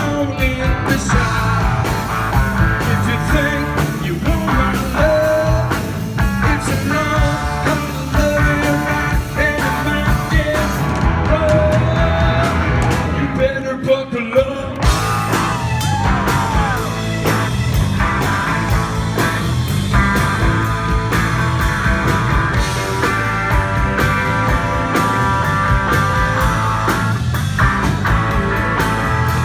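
Live rock band playing an instrumental break, with an electric guitar lead bending and sliding its notes over bass and drums.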